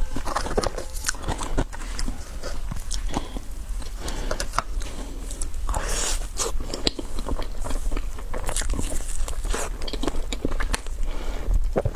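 Close-miked eating of a colourful dessert: repeated bites and chewing with many small crunches and crackles.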